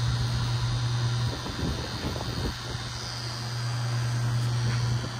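Wireless pen-style rotary tattoo machine running with a steady low hum as it lines a tattoo. About a second in the hum drops back for a moment, with a few soft knocks of handling, then picks up again.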